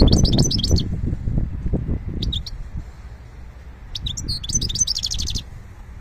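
Small caged finch singing in three short bursts of fast, high twittering notes, the last and longest about four seconds in. A low rumble underlies the first two seconds.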